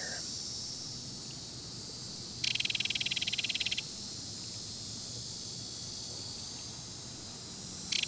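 Insects trilling: a steady high chorus throughout, with a nearer insect's rapid pulsing trill for about a second and a half a couple of seconds in, starting up again at the very end.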